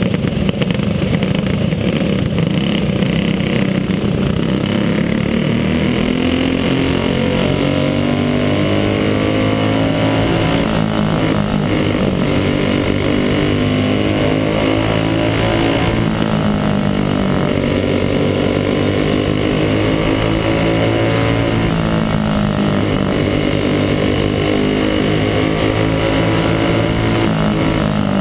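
Racing go-kart engine heard from onboard, running hard. Its note falls and climbs again every few seconds as the kart slows for the turns and accelerates out of them.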